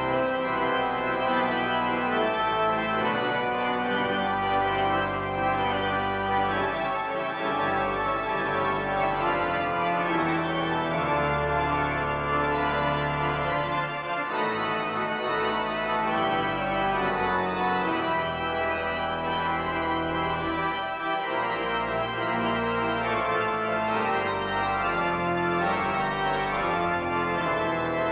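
Church organ playing sustained chords over a bass line that changes in long held notes.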